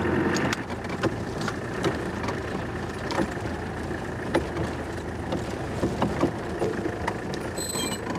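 Off-road vehicle driving over rough ground, heard from inside the cab: a steady engine rumble with scattered knocks and rattles, and a brief high-pitched squeak near the end.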